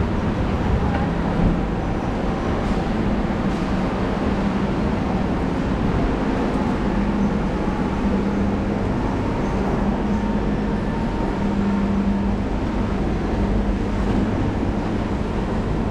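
Steady hum of a Singapore MRT train standing at the platform with its doors open, with a low steady tone that swells and fades slightly.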